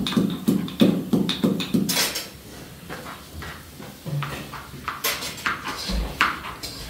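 Rhythmic knocking in a kitchen, about three strokes a second, which stops about two seconds in. Quieter scattered clinks and clatter of utensils follow, with a few sharper knocks near the end.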